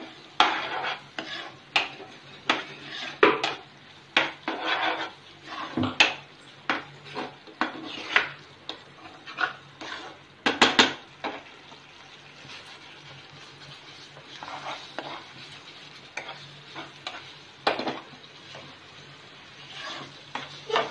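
A steel spoon stirring and scraping thick, simmering palkova (milk reduced with sugar and fried nuts) around a nonstick pan, in quick irregular strokes. The strokes are loud and busy for the first half and softer and sparser after.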